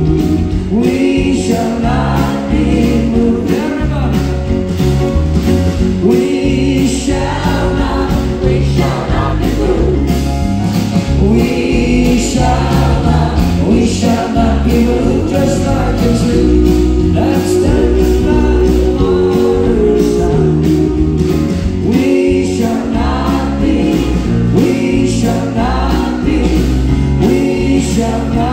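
A live band plays an upbeat gospel song over a steady drum beat, with a male lead singer and several voices singing together.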